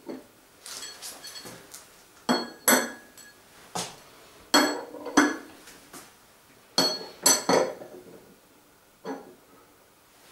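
Metal chain sprockets clinking as they are set down one after another onto metal wheel hubs and against each other, a string of sharp strikes, several ringing briefly.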